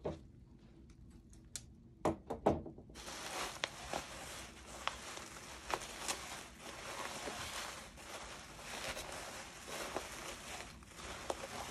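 Plastic bubble wrap being handled and unwrapped, rustling and crinkling, with a cluster of sharp crackles about two seconds in; the crinkling runs on steadily from about three seconds in.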